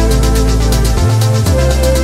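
Electronic dance music with a steady beat and sustained synth tones; the deep bass drops out for about half a second about a second in, then returns.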